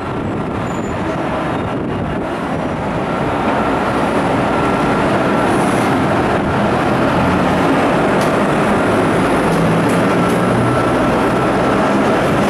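FS E656 electric locomotive pulling out and rolling slowly past at close range. A steady rushing mechanical noise with a thin high whine gets a little louder about three and a half seconds in.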